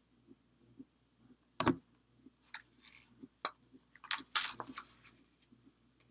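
Scattered clicks, crinkles and taps of hands handling paper flowers in their plastic packaging and a pair of scissors on a worktable. Two sharper, louder clicks come about a second and a half in and at about four and a half seconds.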